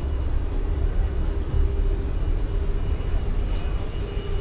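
Steady cabin noise inside an Airbus A380: a constant low rumble with a steady hum over it, even throughout.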